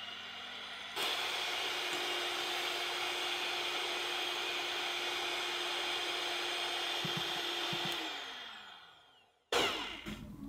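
Electric hand mixer running, its twin wire beaters whirring through eggs and sugar in a glass bowl. About a second in it gets suddenly louder and holds steady. Near the end the motor winds down with a falling whine, followed by a sudden loud burst.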